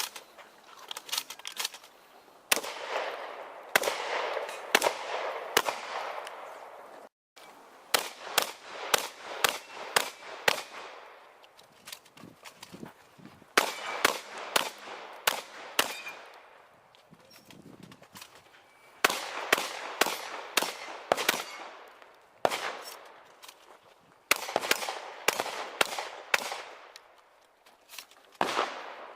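Shotgun shots fired in quick strings of several a second, each with a ringing echo, the strings broken by short pauses.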